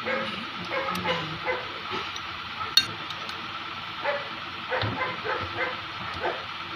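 A dog whimpering and yipping in short, repeated calls, some sliding down in pitch, with one sharp click about three seconds in.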